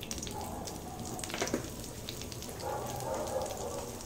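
A little hot oil sizzling in an aluminium wok, with scattered small pops as asafoetida is sprinkled in.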